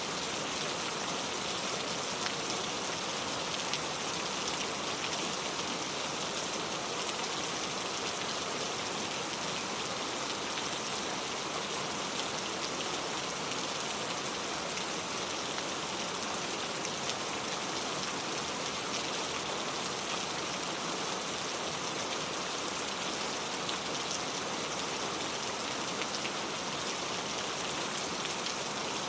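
Steady rain falling, a dense even hiss of many small drops with no pause or change in strength.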